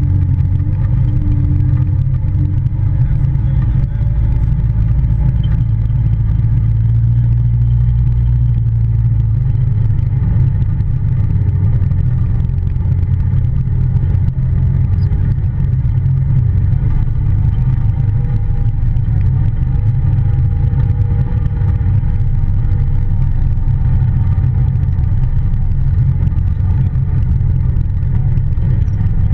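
Polaris Ranger side-by-side's engine running while under way: a loud, steady low drone whose pitch drifts slightly up and down.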